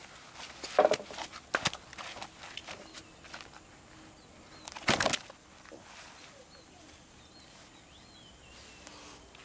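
Sharp thumps and rustling as a large pacu is worked out of a landing net and held down on grass, with the loudest knocks about a second in and again about five seconds in. Faint bird chirps sound in the second half.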